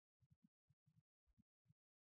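Near silence, broken only by faint, short, irregular blips. No jet engine noise is heard.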